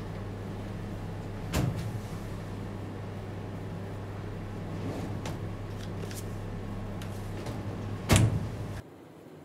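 Two sharp knocks or thumps, one about a second and a half in and a louder one near the end, over a steady low electrical-sounding hum. The hum cuts off suddenly shortly before the end.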